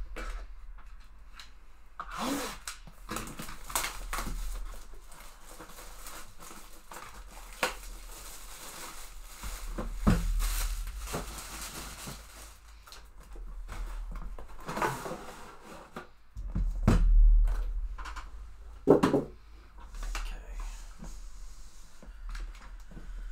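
Handling and opening a Panini Flawless box: the white cardboard outer box scraping and sliding against the gold briefcase inside, with rustles and scattered thumps on the table. The loudest thumps come about three quarters of the way through.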